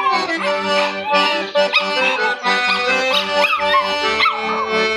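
Accordion playing chords while a dog howls along with it, its howls rising and falling in pitch above the music.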